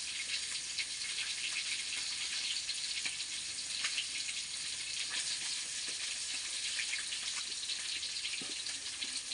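Pieces of red arowana frying in hot oil in a wok over a gas burner: a steady sizzle with many small crackles and pops.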